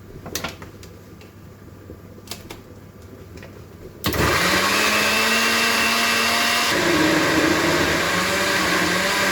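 A few light clicks, then about four seconds in an electric blender's motor starts abruptly, spins up and runs steadily, its pitch shifting partway through.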